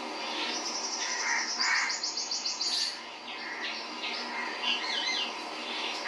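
Birds chirping, with a rapid high trill about two seconds in.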